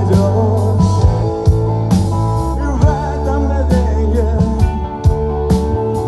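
Rock band playing live: electric guitars, bass guitar and drum kit. The drums hit in a steady beat under sustained bass notes, and a guitar line wavers in pitch above them.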